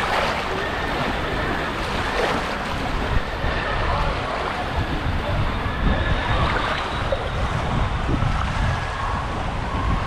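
Water rushing down an open fiberglass water-slide flume, heard close up from a rider sliding through it, with wind buffeting the microphone.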